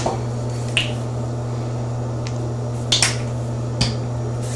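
A few sharp clicks and taps from a plastic tube of body butter being handled, about a second in, twice close together near three seconds and once near four, over a steady low hum.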